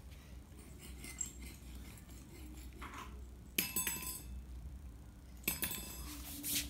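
A small metal bell jingling in two short bursts, about three and a half and five and a half seconds in, as it is knocked about during a cat's play.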